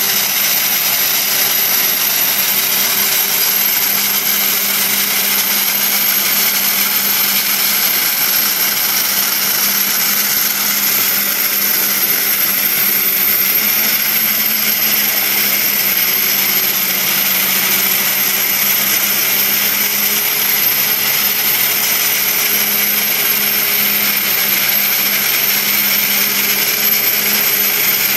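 Dry ice blasting gun shooting a continuous jet of compressed air and dry ice pellets against painted wood, stripping the synthetic resin paint. It makes a loud, steady hiss with a steady low hum underneath.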